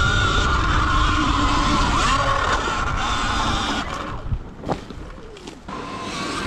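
Sur-Ron electric dirt bike's motor whining steadily under way over a low rumble, then easing off about four seconds in, with a few knocks as the bike rolls to a stop.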